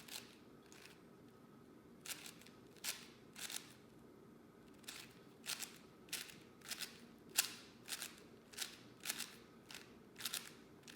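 4x4 Rubik's cube being turned through an edge-swapping parity algorithm: a series of sharp plastic clicks as the layers are turned, irregularly spaced, one to three a second.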